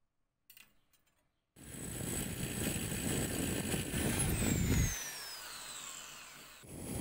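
Electric drill boring into the steel blade of an axe-saw-chisel combination tool, starting about a second and a half in; its whine slides down in pitch as the bit cuts the metal. It stops around five seconds in and starts drilling again just before the end.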